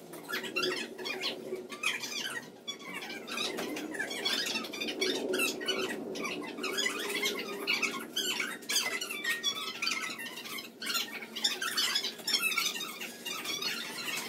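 A woman talking continuously, her voice distorted so that the words cannot be made out.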